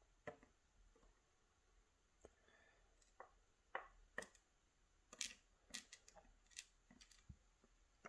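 Faint, scattered light clicks of steel tweezers handling small lock pins in a plastic pin tray: about a dozen irregular taps.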